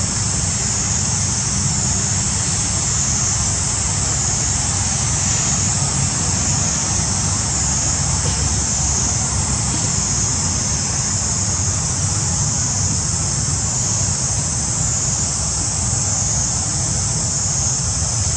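Steady outdoor ambience: a high-pitched insect drone that swells and fades about once a second, over a constant low rumble.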